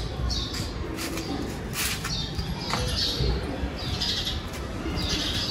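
Birds chirping over and over in short high calls, with a few sharp plastic clicks, near the start and about two and three seconds in, as a hose is fitted to a portable pressure washer.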